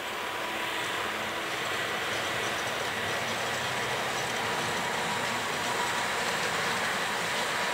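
PKP ET22 electric freight locomotive hauling a single open coal wagon as it passes: an even rolling rumble and hiss, with a steady high whine over it, growing slightly louder.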